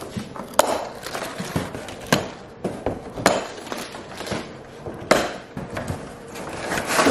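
Large cardboard shipping box being opened by hand: a run of sharp cracks and scrapes with rustling in between as the cardboard flaps are pulled and folded back.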